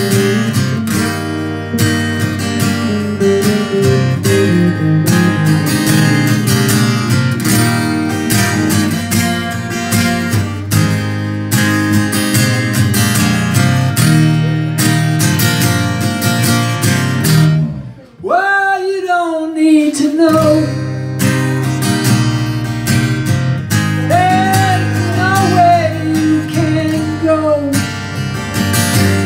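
Live acoustic guitar strummed steadily in a small folk-country band setting, with a second guitar alongside. About two-thirds of the way through the strumming breaks off for a moment and a long falling sung note comes in, with more singing near the end.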